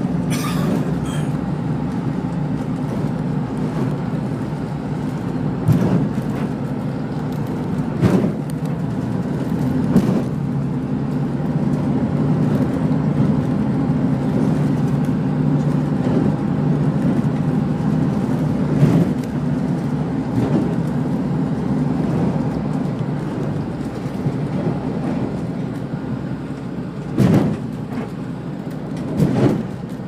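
Boat engine running with a steady low drone under rushing water noise, broken every few seconds by thuds and splashes as the hull meets rough waves, two of them close together near the end.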